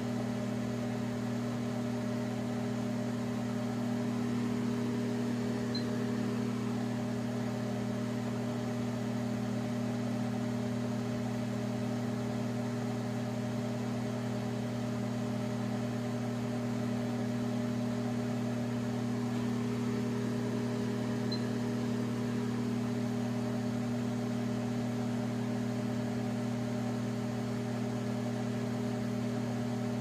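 An 1100-watt microwave oven running at full power, drawing about 15 amps, with a steady, unchanging hum throughout.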